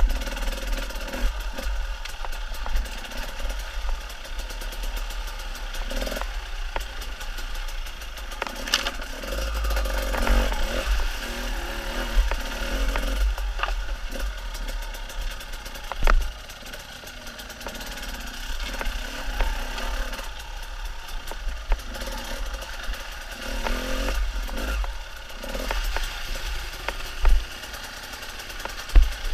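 Enduro dirt bike engine revving up and down as it climbs a rocky creek bed, with sharp knocks and clatter from rocks and running water underfoot.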